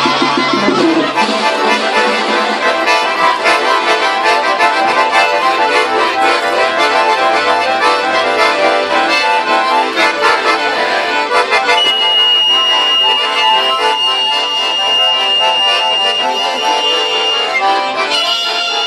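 A small instrumental ensemble playing a dense passage of music. Past the middle, one high note is held for several seconds, and near the end several steady notes are sustained together.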